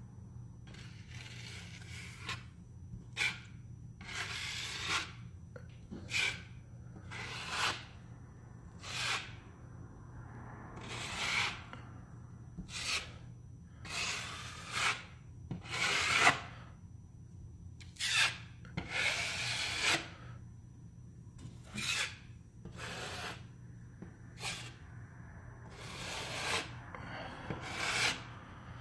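Putty knife scraping and spreading joint compound over a drywall patch, in short irregular strokes about one a second.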